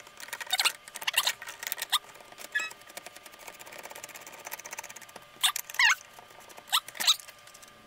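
Air bottle with a regulator being screwed by hand into a Kral Puncher Jumbo air rifle. Scattered clicks and a dense fine ticking come from the turning threads and fitting, and several short squeaks near the end come from the parts rubbing as the bottle tightens.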